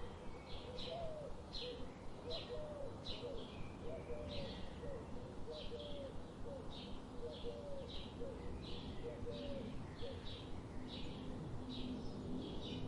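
Birds chirping: short high chirps repeat about twice a second, with a fainter, lower repeated call beneath them over a steady low background rumble.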